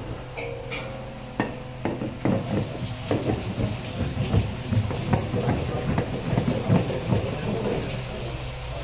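A hand-rolled steel disc roller pushed back and forth over a layer of roasted peanuts, making a dense crackling and clattering as the nuts are cracked and split under the discs. A steady low hum runs underneath.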